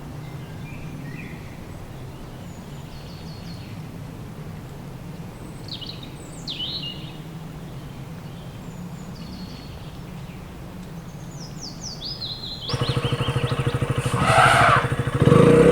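Birds chirping in short descending calls over a low steady engine hum; about 13 s in, a motor vehicle, likely a motorcycle, comes in loudly with a pulsing engine note and grows louder.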